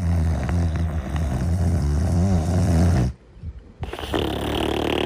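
Cartoon snoring: one long, low snore lasting about three seconds, a short pause, then a second, higher-sounding snore starting about four seconds in.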